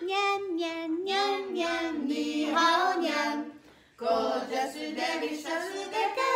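Female voice singing a melody in a high register, with a short break about three and a half seconds in before the singing resumes.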